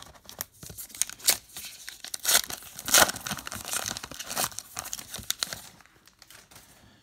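Crimped foil wrapper of a trading-card pack being torn open, a run of crackling, crinkling tears, loudest about three seconds in and dying away near the end.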